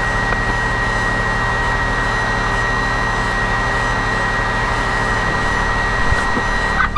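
Milwaukee M12 Hatchet cordless pruning saw running steadily with a high, even whine while bucking limbs off a fallen tree, cutting out near the end. A side-by-side's engine idles low underneath.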